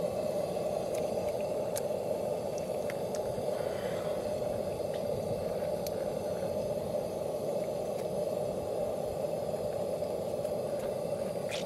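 Portable propane heater burning with a steady rushing hiss, with a few faint ticks and crackles as charred skin is peeled off a roasted red pepper by hand.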